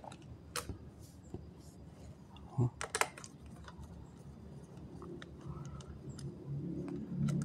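Scattered small clicks and light knocks of a screwdriver undoing screws on an Acer notebook's mainboard, with a short run of sharper clicks about three seconds in.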